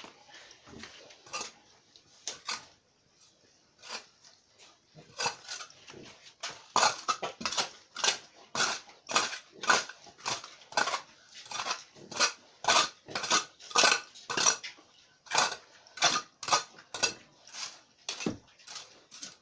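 Metal tool striking and scraping in a steady rhythm, sparse at first, then about two clinks a second from about a third of the way in.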